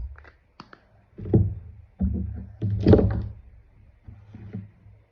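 Slime being squished and handled: irregular soft thuds with a few small sharp clicks, the biggest two about a second and three seconds in.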